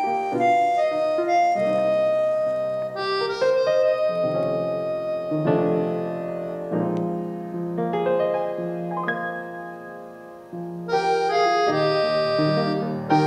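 Background music led by piano or keyboard, with sustained chords and melody notes. It thins out around ten seconds in, then comes back fuller.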